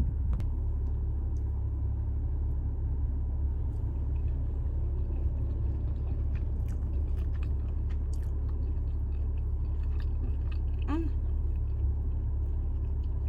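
A person bites into and chews a sotteok-sotteok skewer of sausage and rice cake, with soft mouth clicks and a short hummed 'mm' near the end. A steady low rumble runs underneath.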